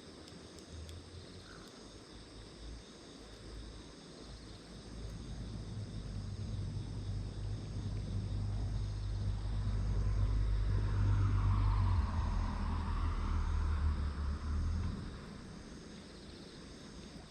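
Low engine rumble of something passing at a distance, building up over several seconds, loudest about two-thirds of the way in, then fading away, over steady chirring of insects.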